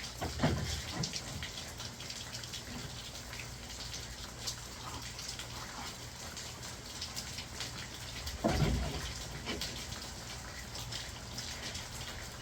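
Steady rain falling, with many small drop ticks over a continuous hiss. Two dull thumps stand out, one about half a second in and a louder one about eight and a half seconds in.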